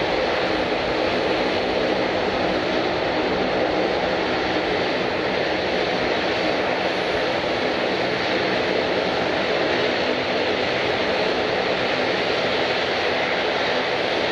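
Airliner engines running steadily: a constant rushing noise with a low steady hum underneath, neither rising nor falling.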